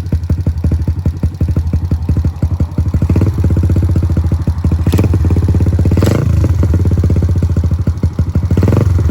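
Kawasaki KLX110L pit bike's single-cylinder four-stroke engine, newly fitted with a Tbolt 143 big bore kit, running just after starting with a fast, even putter. It is revved briefly three times, about three, six and nearly nine seconds in.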